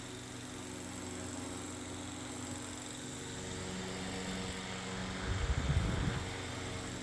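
Circa 1910 ECK Tigre Hurricane ball-motor fan running with a steady electric motor hum. A brief, louder low rumble comes about five seconds in.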